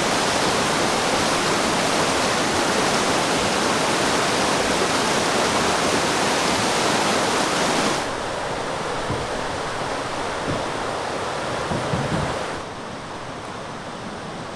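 River rapids rushing, a steady roar of white water that drops abruptly to a quieter level about eight seconds in and again near the end. A few faint low knocks come between the two drops.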